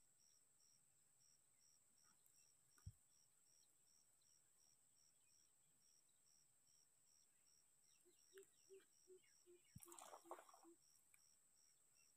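Near silence: an insect, cricket-like, chirps steadily about four times a second over a faint high hiss. A short run of low pulses and a brief rustle come near the end.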